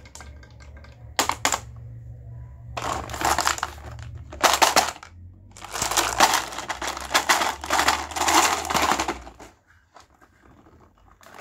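Balls clattering down a wooden marble run: rapid runs of hard clicks and rattles in several spurts, over a low hum. Both stop a little before the end.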